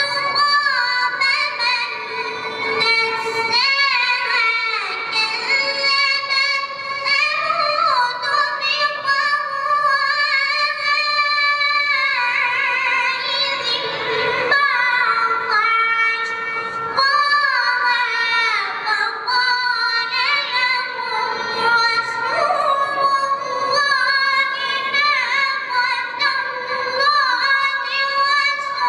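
A high-pitched voice singing unaccompanied, with long held notes bending up and down in ornate runs and brief breaths between phrases.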